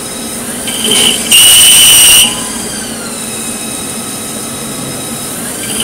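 Haas CNC lathe running with the spindle turning and coolant spraying. About a second in, the threading tool makes one pass along the steel thread, a loud high-pitched screech lasting under a second. This is a spring pass, a finishing pass at the same depth to clean up the thread.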